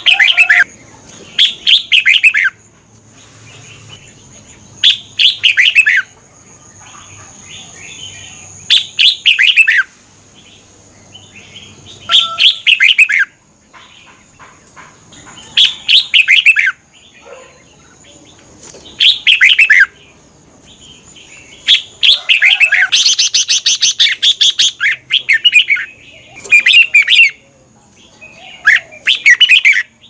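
Red-whiskered bulbul singing loud, short warbled phrases about every three seconds, about ten in all. One longer phrase about two-thirds of the way through ends in a fast rattling trill. A steady thin high tone runs underneath.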